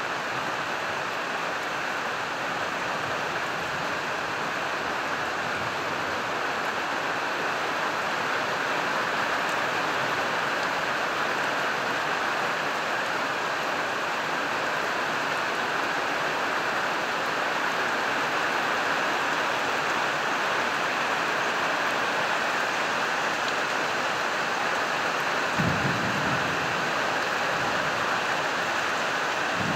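Heavy summer downpour: a steady, even hiss of rain. Near the end a brief low thump breaks through.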